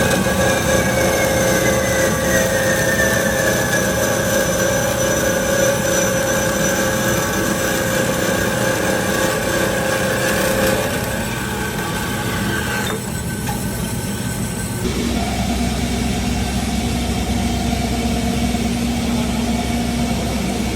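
Metal-cutting machinery running steadily, a horizontal bandsaw and a CNC laser cutter, with a whine that falls slowly in pitch in the first few seconds. The sound changes abruptly twice, about two-thirds of the way through.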